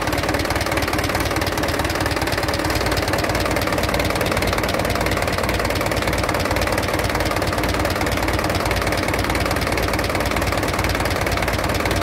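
Mitsubishi Canter HD truck's four-cylinder diesel engine idling steadily with its usual diesel clatter, the oil filler cap off.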